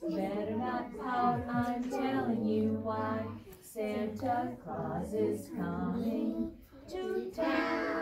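Young children singing a song together on stage, with a grown woman's voice singing along with them.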